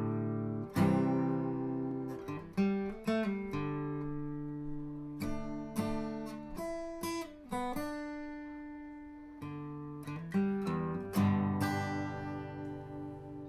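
Acoustic guitar music: a string of plucked notes and chords, each struck sharply and left to ring out.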